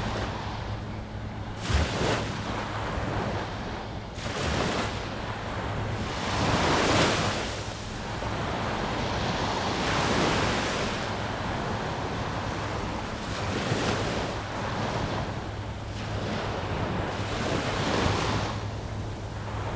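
Small waves breaking and washing up a sandy beach, the surf swelling and fading every few seconds, with wind rumbling on the microphone.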